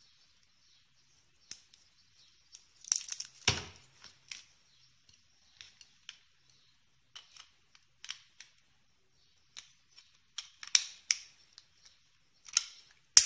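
Small plastic clicks and scrapes as two AAA batteries are handled and pressed into the plastic battery compartment in the handle of a GM320 infrared thermometer. There is a louder knock about three and a half seconds in and a sharp click near the end.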